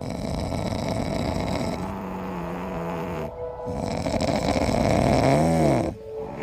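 Sleeping cat snoring: two long breaths, the first with a steady low hum in it and the second with a pitch that rises and falls near its end.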